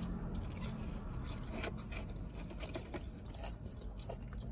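Close-miked chewing of fried chicken and fries, with scattered short, soft mouth clicks and smacks.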